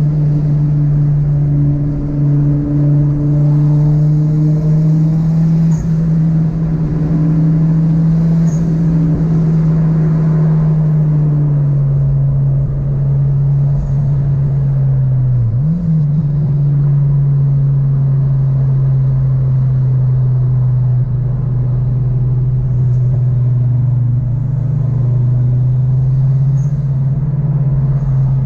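Car engine droning at steady cruising revs, heard from inside the cabin over tyre and road rumble. The engine note eases slightly lower about halfway through, with one brief dip and recovery.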